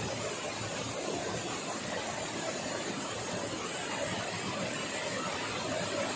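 Steady rushing of a small waterfall cascading over rocks.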